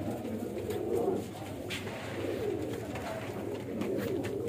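Indian zakh pigeons cooing continuously, several low wavering coos overlapping, with a couple of short sharp clicks.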